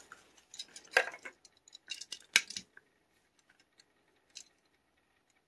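Sharp clicks and snaps of a plastic blister pack being opened to free a Hot Wheels die-cast car, the two loudest about a second and two and a half seconds in, with lighter ticks between them.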